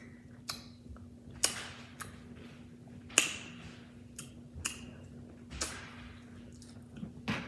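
Crab being picked apart and eaten: scattered sharp clicks and cracks of shell, about six over several seconds, over a faint steady hum.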